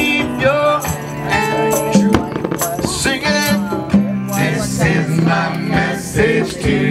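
Band music with a singer's voice over a steady beat.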